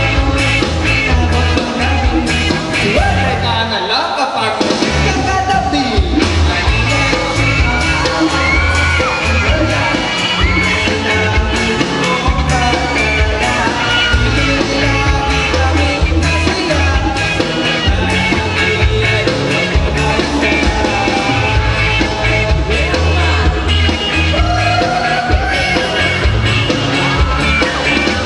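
Live band playing amplified music with a lead singer; the bass and drums drop out briefly about four seconds in, then the full band comes back in.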